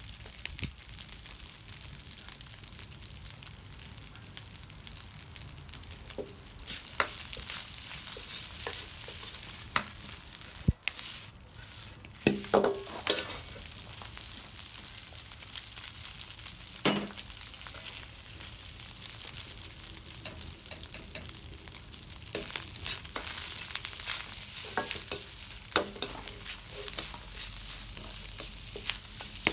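Fried rice sizzling in a pan over a campfire, stirred, with irregular sharp scrapes and clinks of the utensil against the pan.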